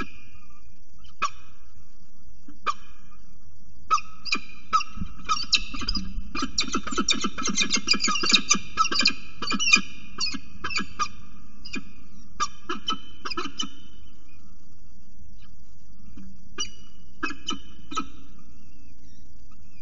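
Peregrine falcons calling during a prey handover at the nest ledge: short, pitched calls, a few at first, then a rapid run of calls from about six to ten seconds in, and a handful more near the end. A steady low hum lies under them.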